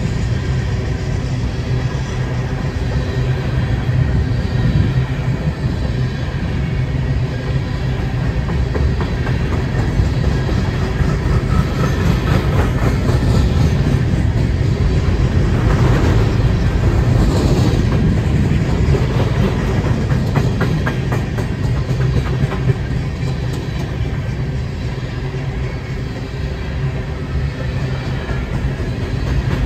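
Empty coal train's hopper cars rolling past: a steady rumble of steel wheels on rail with stretches of clickety-clack as the trucks cross rail joints.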